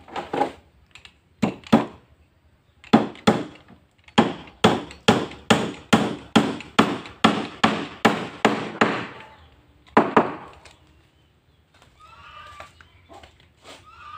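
Hammer blows on the meranti-wood hull of a jukung canoe: a few separate knocks, then a steady run of about two to three blows a second for some five seconds, and one last blow about ten seconds in.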